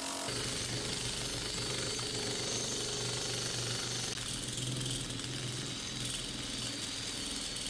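Cordless drill running steadily with a long bit turning inside the steel neck of a fire extinguisher clamped in a vise. It starts about a quarter second in and eases slightly about five seconds in.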